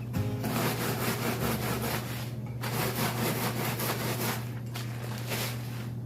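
Rolling pin pressed back and forth over crushed saltine crackers inside a plastic zip-top bag, a crunching, rubbing sound in repeated strokes with brief pauses twice.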